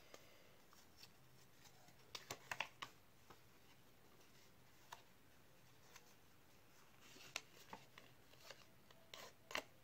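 Near silence with faint paper rustles and creasing clicks as a sheet of paper is folded by hand: a short cluster about two seconds in, single ticks after, and more crinkles near the end.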